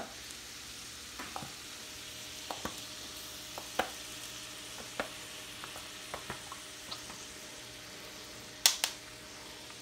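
Shrimp frying in a stainless skillet with a steady sizzle and scattered pops and crackles as bottled hot sauce is squeezed over them. Two sharp clicks come near the end.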